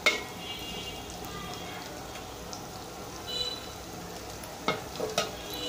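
Shrimp and onions sizzling in hot oil in a metal pot, with a metal spatula stirring and knocking against the pot: a sharp knock at the start and two more near the end.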